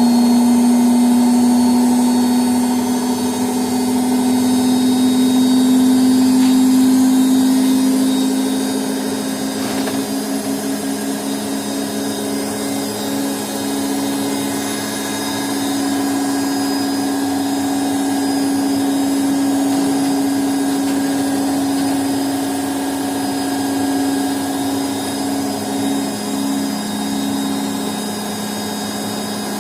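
Washing machine running, its motor giving a steady, loud hum that wavers in a quick pulse from about ten seconds in.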